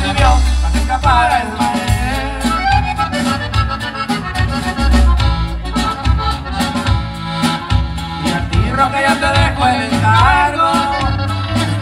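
Live band playing an instrumental passage, a button accordion carrying the melody over guitar, low bass notes and drums.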